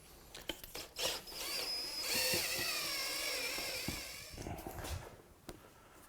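Handheld electric mixer running for about three and a half seconds, stirring Jesmonite casting mix, its whine wavering as it works through the mix. A few light knocks come before and after it.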